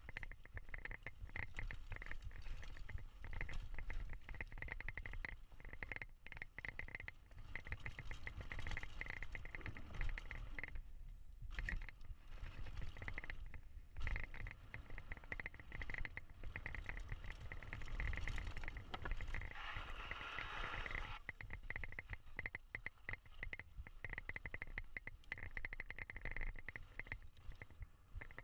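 GT Force X Expert full-suspension mountain bike ridden fast down a dirt and gravel trail: a steady low rumble from the tyres and the ride, with a fast clicking rattle from the bike, louder in patches.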